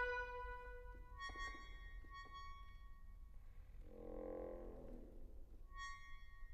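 Classical accordion playing very softly: short, high, detached chords about a second in, about two seconds in and near the end, with a brief soft, hazy lower sound about four seconds in.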